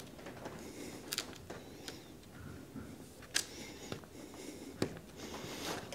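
Faint handling sounds as fingers work and line up the end of a camper-window glazing strip on a work surface: light rubbing with a few small sharp ticks, the clearest about three and a half seconds in.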